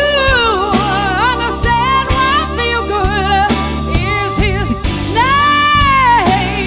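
Live band playing a slow soul ballad: a lead melody line slides and bends between notes with vibrato over sustained keyboard chords, bass and drums.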